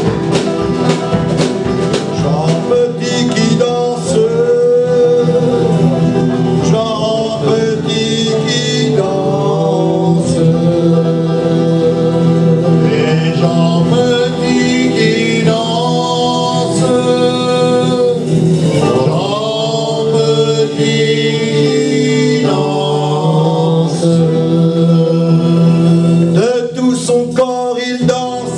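Live acoustic band playing a folk song in a country/bluegrass style: banjo, acoustic guitar, upright double bass and drum kit, with group singing.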